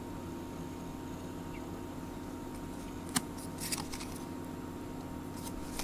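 A cardboard baseball card being handled and turned over in the fingers: a sharp click about three seconds in, brief rustling just after, and a couple of light ticks near the end, over a steady low hum.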